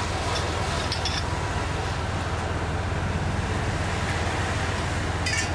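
Golf cart driving steadily, its motor and tyres making a continuous low rumble.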